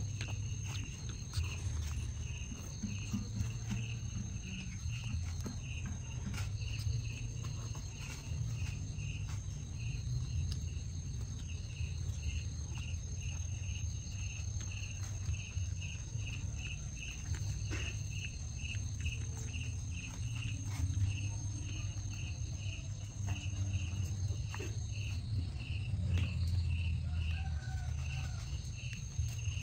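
Insects chirping in a regular rhythm, about two chirps a second, with a thin steady high tone that breaks off for a moment near the end, over a steady low rumble.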